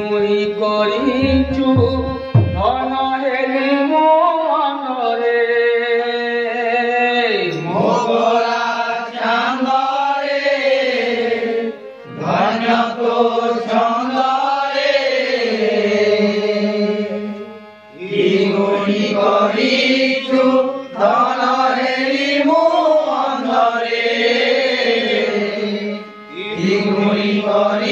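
Devotional kirtan singing: a chanted melody sung in long flowing phrases over a steady drone, with short breaks between phrases about twelve, eighteen and twenty-six seconds in.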